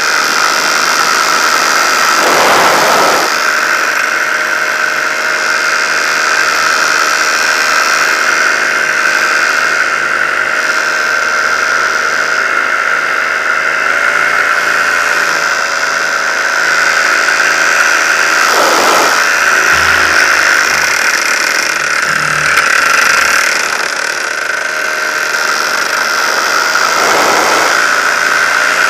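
Paramotor engine and propeller running steadily in flight, a constant high-pitched drone, with three brief gusts of wind noise on the microphone.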